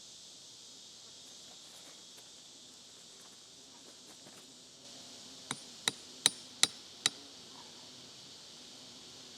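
Five sharp knocks in quick succession, about two a second, over a steady high drone of insects.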